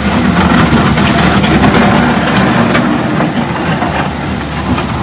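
Bobcat S160 skid steer loader's diesel engine running steadily, a little louder over the first three seconds, with a few sharp metallic knocks around the middle and near the end.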